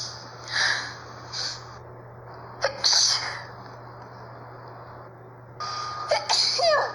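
A person sneezing repeatedly: short breathy bursts, a sharp sneeze about three seconds in, and another sneeze near the end.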